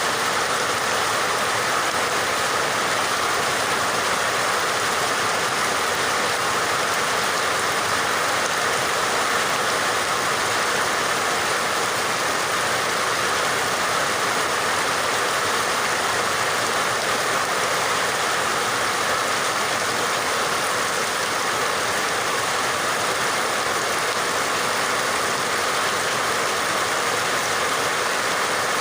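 Steady rain, an even hiss with no breaks or single drops standing out.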